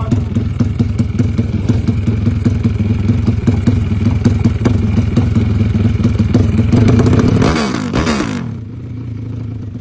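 Honda Sonic-based drag bike's single-cylinder four-stroke engine running fast at the start line with a rapid stuttering beat. It revs up harder around seven seconds in, then falls away in pitch and settles to a quieter idle.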